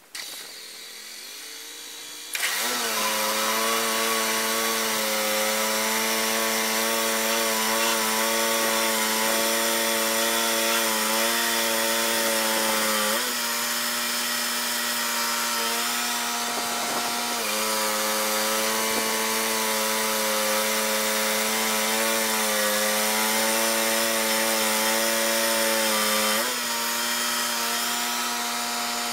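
Wood-Mizer LT35 portable band sawmill coming up to speed about two seconds in with a rising pitch, then running with a steady hum as its band blade cuts a slab from an English walnut log. The pitch sags briefly twice, once midway and once near the end.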